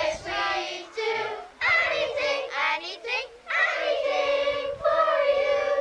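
Group of schoolchildren singing together, a traditional Tipperary song, in long held phrases with brief breaks between them.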